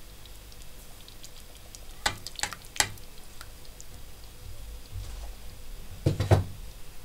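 Spoon stirring sauce in a stainless steel pot, clinking against the pot three or four times about two to three seconds in, then a louder knock a little after six seconds.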